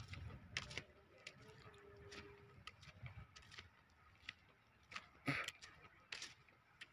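Footsteps on the dust-covered top of a brick kiln: faint, irregular scuffs and clicks about one or two a second, the loudest about five seconds in.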